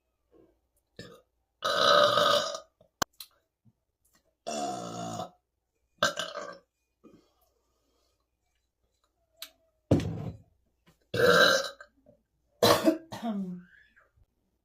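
A woman burping repeatedly: about six loud burps, each lasting up to about a second, with pauses between them.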